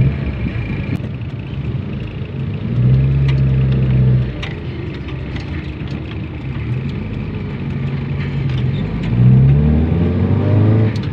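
Mitsubishi Lancer's carbureted four-cylinder engine running during a road test after a carburetor overhaul, heard from inside the cabin. The engine note swells under throttle about three seconds in and again near the end, where its pitch climbs.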